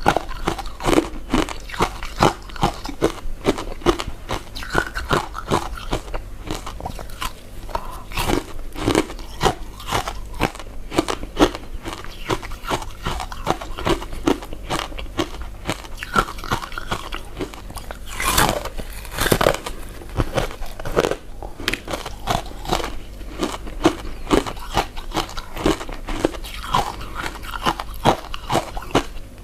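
Close-miked chewing of soft, chewy glutinous rice desserts: a continuous run of small irregular mouth clicks and chewing noises, with a few louder ones a little past halfway.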